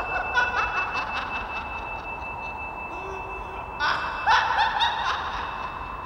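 A woman laughing in two bouts, a short one at the start and a louder one about four seconds in.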